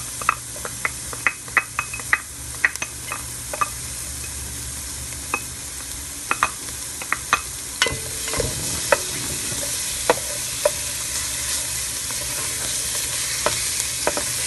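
Chopped garlic sizzling in melted butter in a stainless steel pot with a steady hiss while it is stirred. The spoon knocks and scrapes against the pot, making many sharp clicks.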